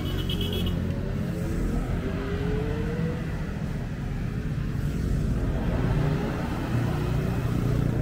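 Street traffic: motor vehicle engines running close by, one rising in pitch as it speeds up over the first few seconds. A brief run of high beeps sounds right at the start.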